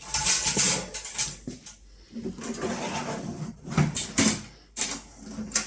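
Knocks, clatter and rustling of heater parts being handled and moved into place, in a few sharp strokes with quieter fumbling between.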